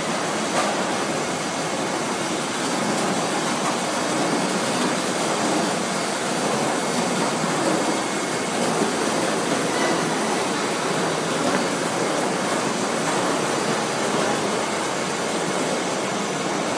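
Core-filled snack extrusion line running: a steady, even machinery noise from the extruder, cutter and conveyors, with one sharp click about half a second in.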